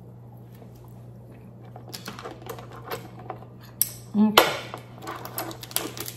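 Metal utensil clicking and clattering against Dungeness crab shell on a wooden board, loudest about four seconds in. Near the end the shell crackles as it is broken apart by hand.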